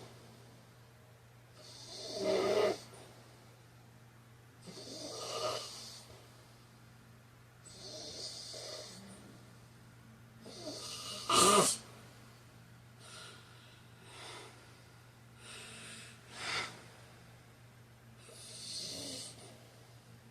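A man snoring in his sleep, a rough snore on each breath every few seconds, the loudest and sharpest about halfway through, followed by several shorter, quieter breaths. A steady low hum runs underneath.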